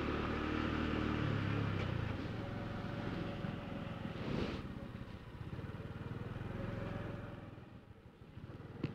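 Honda Cross Cub's small single-cylinder engine running at low road speed, with wind and road noise on the onboard microphone. It eases off about a second before the end, and there is a sharp click just before the end.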